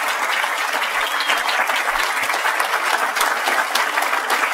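A large audience applauding steadily, many hands clapping at once in a standing ovation at the end of a speech.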